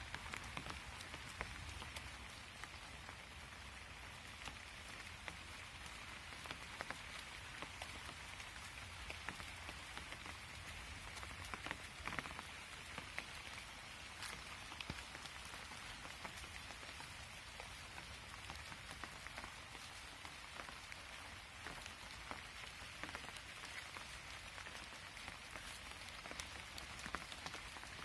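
Rain falling steadily, with many scattered sharp ticks of single drops striking close by.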